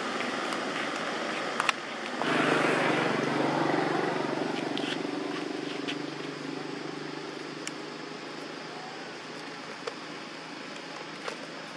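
A motor vehicle's engine passes by: it comes up suddenly about two seconds in with a steady low hum and slowly fades away. Underneath there is a steady background hiss, with a few sharp clicks.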